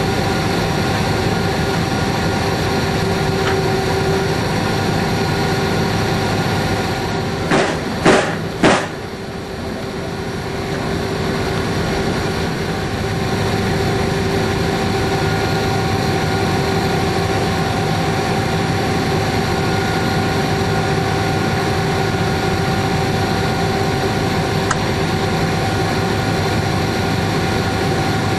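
Cab of G class diesel-electric locomotive G514 under way: a steady engine drone with a few held tones. About a third of the way in come three loud, sharp knocks in quick succession.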